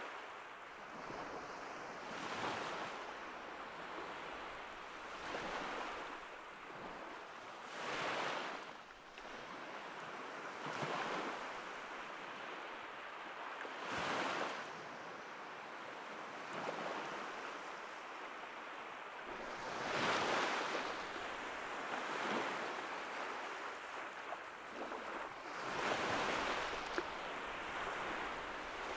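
Sea surf breaking on a rocky shore: a steady wash of noise that swells and falls away again every few seconds as each wave comes in.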